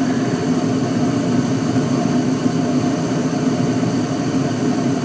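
Two 2001 York gas furnaces running with their burners lit: a steady, unchanging hum with a low tone underneath.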